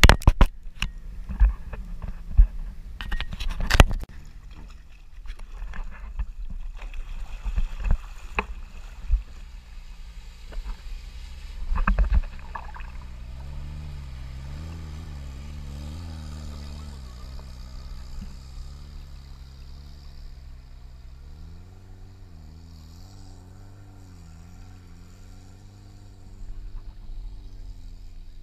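Off-road buggy's engine running as it ploughs through deep floodwater, its pitch rising and falling with the throttle, fading toward the end as it moves off. Sharp knocks and splashes come in the first few seconds and again about 8 and 12 seconds in.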